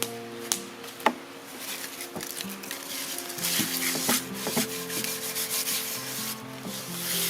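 Rubbing and scraping on wood with a few sharp clicks, the scraping growing denser in the second half, over soft background music of held notes.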